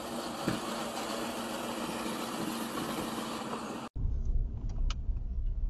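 Steady rush of road and engine noise inside a moving vehicle. About four seconds in it cuts abruptly to a deeper, low rumble of a car cabin at low speed, with a few faint clicks.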